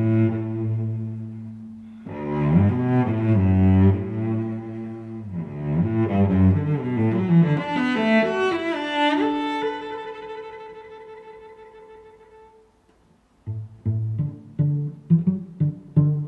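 Background instrumental music: sustained, held notes that fade away about three-quarters of the way through. After a brief break, short separate notes start in a steady rhythm.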